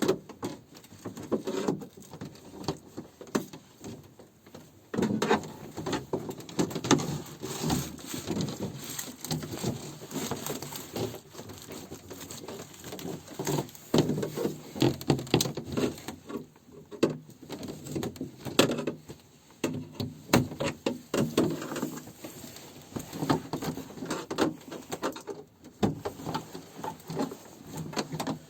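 Irregular handling noises: rustling, scraping and scattered knocks and clicks, as of things being moved about and handled, coming in uneven bursts with short pauses.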